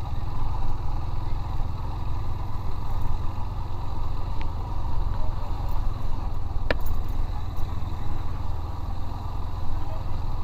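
Motorcycle engine running steadily while being ridden, with a single sharp click about two-thirds of the way through.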